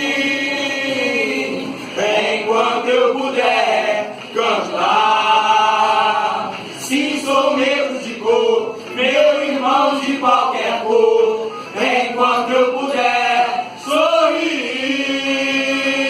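A choir singing a cappella in phrases of held notes.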